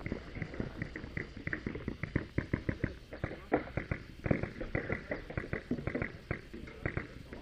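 Paintball markers firing during a game: a rapid, irregular run of sharp pops, several a second, with paintballs smacking into bunkers.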